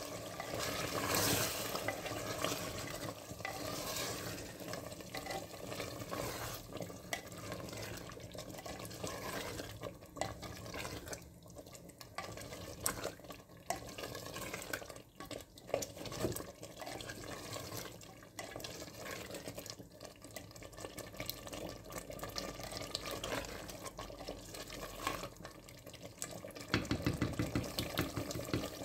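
Slotted spatula stirring chicken and cream in a clay matka pot, the sauce sizzling and bubbling, with scattered knocks of the spatula against the pot. The sizzling grows louder and denser near the end.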